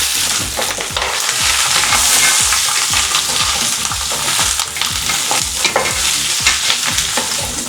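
Beef bones and chopped onions frying in the bones' own rendered fat, sizzling steadily, with a utensil stirring and knocking against the pot in short irregular clicks.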